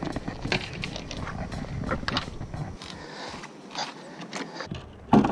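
A kayak scraping and rustling through tall grass and weeds, with irregular knocks and rattles from the paddle and fishing rods aboard.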